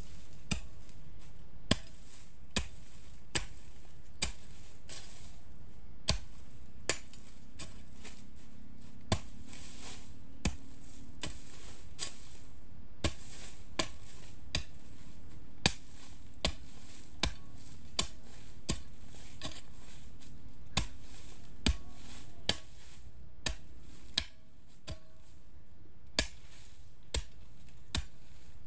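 Hoe blade chopping into hard, dry clay soil to dig planting holes, with a sharp strike roughly once a second.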